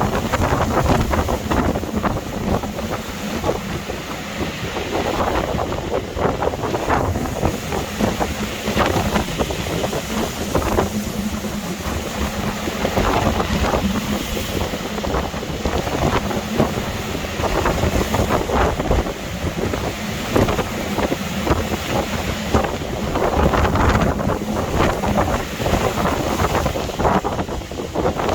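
Gale-force storm wind buffeting the microphone in gusts that rise and fall, with no pause between them.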